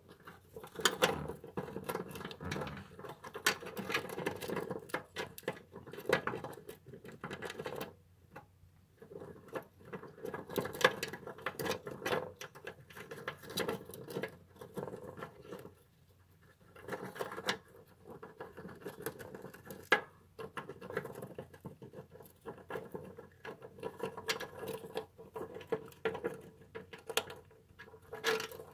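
Russian dwarf hamster gnawing an in-shell peanut: rapid runs of small crunching clicks as its teeth work the shell, pausing briefly twice.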